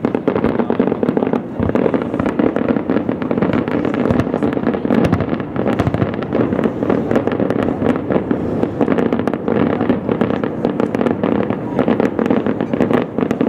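Distant aerial fireworks display: shells bursting in a rapid, unbroken run of bangs and crackles.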